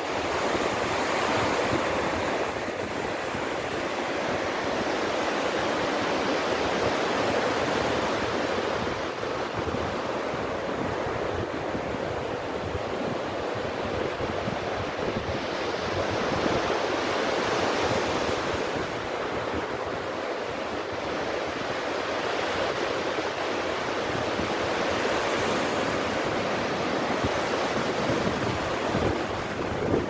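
Small surf breaking and washing up a sandy beach, rising and falling as each wave comes in and runs back.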